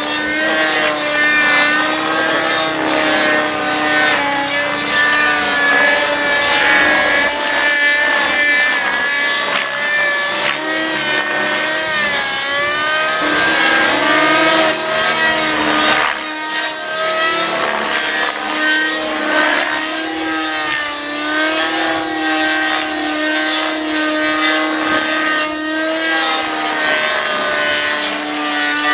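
Compass 3D Plus 50-size nitro RC helicopter flying aerobatics: its two-stroke glow engine and rotors run loud and continuously, the pitch bending up and down as it is thrown through manoeuvres.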